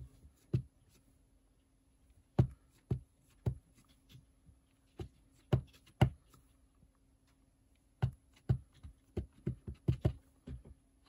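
Green ink pad tapped again and again onto a rubber stamp to ink it, the pad being not very juicy. Scattered single taps at first, then about ten quicker taps in the last three seconds.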